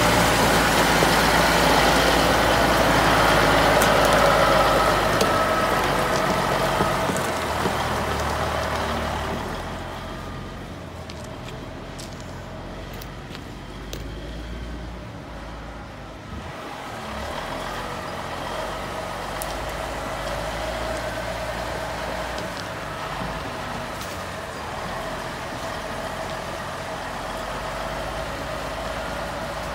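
Caterpillar 3406 inline-six diesel of a Ford LTL 9000 tandem-axle dump truck running, loud at first and then fainter and steady from about eight seconds in.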